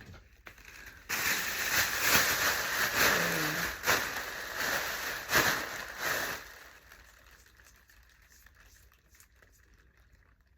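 Close rustling and handling noise, with a few sharp crackles, for about five seconds, then it dies down.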